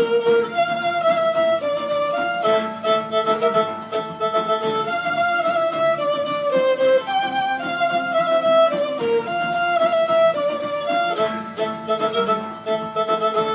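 Background music: a violin melody in quick stepping notes over a light, steady beat.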